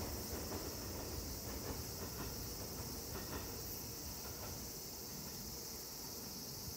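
Steady high buzz of insects over the low rumble of a Seibu 2000 series train rolling slowly, with a few faint clacks of its wheels over rail joints in the first three seconds.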